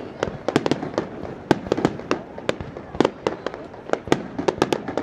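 Aerial fireworks display: shells bursting overhead in rapid, irregular sharp bangs and cracks, several a second.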